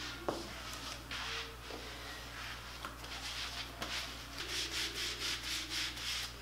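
Self-tanning mitt rubbing tanning lotion over bare skin in repeated swishing strokes, several a second toward the end, with one small click about a quarter second in.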